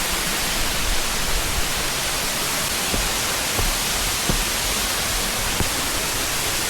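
Waterfall pouring, a steady, even rush of water noise, with a few faint taps over it.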